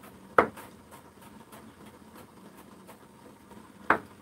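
Kitchen knife chopping carrot on a wooden cutting board: light, quick taps about three a second, with two louder knocks, one near the start and one near the end.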